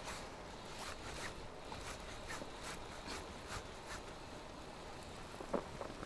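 Spinning reel being cranked on a fishing rod: a faint run of light, irregular ticks over a steady background hiss, with a couple of sharper ticks near the end.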